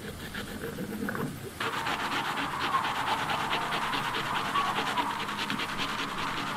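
Food being grated by hand on a metal box grater into a metal bowl: quick, even rasping strokes, several a second, starting about a second and a half in.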